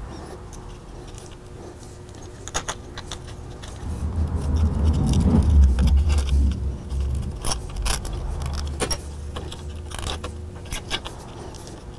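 Small clicks and light metallic rattles of wires and metal connectors being handled and fitted into a plasma cutter torch's plastic handle. A low rumble swells up about a third of the way in and fades out a few seconds later.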